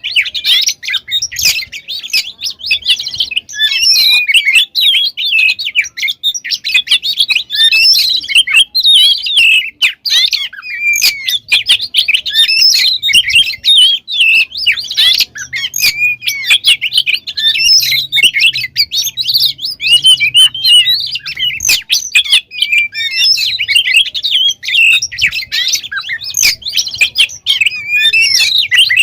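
Oriental magpie-robin (kacer) singing continuously: a fast, unbroken stream of varied chirps, trills and whistles, full of inserted phrases.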